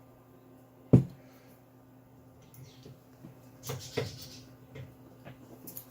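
Lock parts being handled: one sharp knock about a second in, then a few lighter clicks and rustles.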